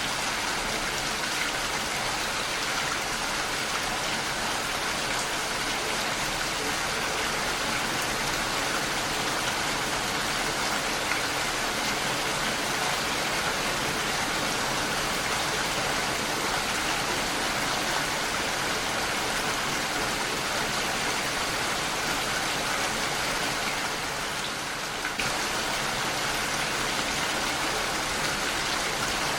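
Heavy rain falling steadily on window glass, dipping slightly in loudness for a moment about 24 seconds in.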